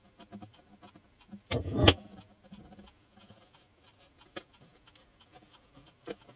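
Small glue brush dabbing glue along the edge of a wooden guitar body top, with faint light ticks and taps of the brush on the wood and the glue pot. A brief louder sound comes about one and a half seconds in.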